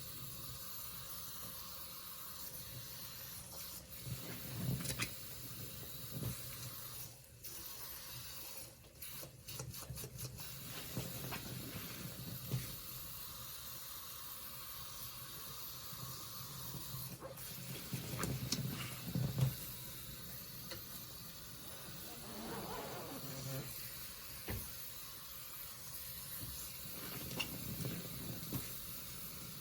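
Soapy sponge being squeezed over and over, giving wet squelches and a fizzing, crackling hiss of suds. The squeezes come at irregular intervals, the loudest about three-quarters of the way through.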